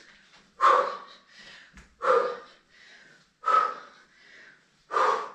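A person breathing hard from exertion during fast lunges: four forceful exhales, evenly spaced about a second and a half apart, with quieter inhales between.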